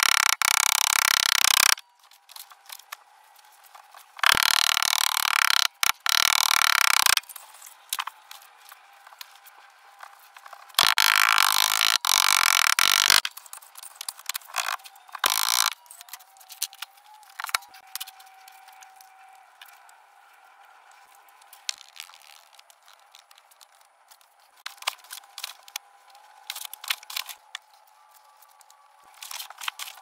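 Red Petrobond sand in a steel moulding flask being rammed with a rubber mallet and scraped level with a metal bar. There are three loud stretches of gritty noise in the first half, then lighter scrapes and clicks.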